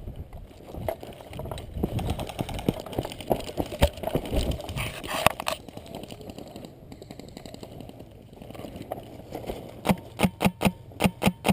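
Running footsteps and gear rustling on a body-worn camera mic for the first several seconds. From about ten seconds in, airsoft guns fire a rapid string of sharp pops, about four or five a second.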